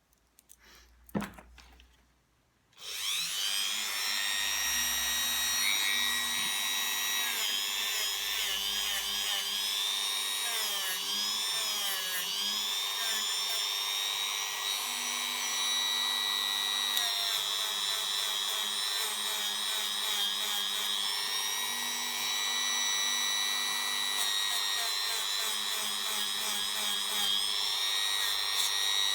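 A few light clicks, then about three seconds in a small electric motor starts up and runs steadily with a high whine. Its pitch wavers up and down as the load on it changes.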